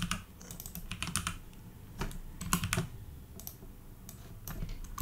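Typing on a computer keyboard: short irregular bursts of key clicks with brief pauses between them.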